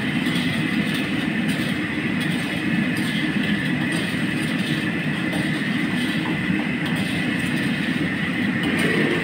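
Steady roar of a commercial wok burner under a wok of oil at a full boil, deep-frying whole crabs, with a steady high whine running underneath.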